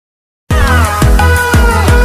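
Electronic music with deep bass drum hits about twice a second under sustained synth tones, starting abruptly about half a second in after silence.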